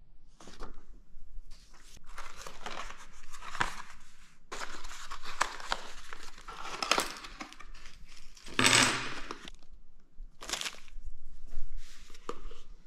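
Paper and cardboard packaging rustling and crinkling as it is handled, in irregular bursts, with a few light clicks. The loudest rustle comes about two-thirds of the way through.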